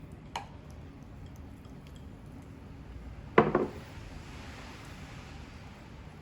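Glass Ramune soda bottle handled while it is drunk from: a light click early on, then one short, sharp clink about three and a half seconds in, over quiet room tone.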